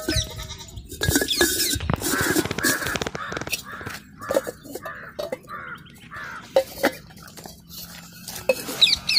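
A bird calls over and over, a run of short calls at about two a second for several seconds. Fired clay pots knock against each other now and then as they are stacked into a woven basket.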